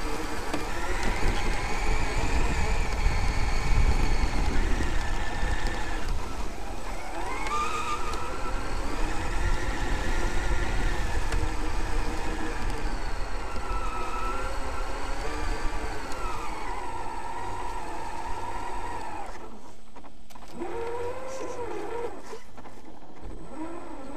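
Traxxas X-Maxx RC monster truck's brushless electric motor and gear drivetrain whining, rising and falling in pitch as the throttle is worked, over a low rumble from the truck bouncing across rough ground. The whine drops and eases off after about nineteen seconds as the truck slows.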